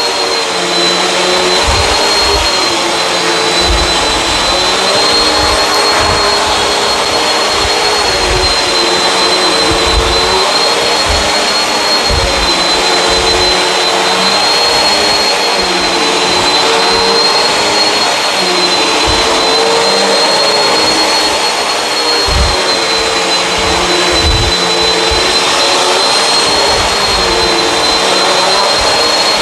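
Bissell CleanView Swivel upright vacuum running continuously over carpet: a steady rush of air with a high motor whine. Lower motor tones waver slightly as the vacuum is pushed back and forth, and short low bumps recur throughout.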